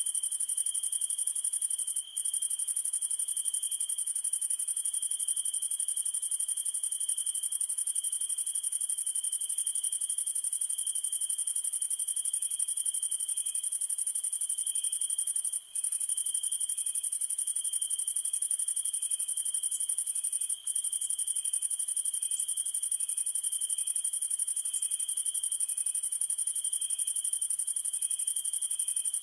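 Crickets trilling steadily at night in a high, unbroken chorus, with fainter evenly spaced chirps beneath it. The sound cuts out for an instant three times.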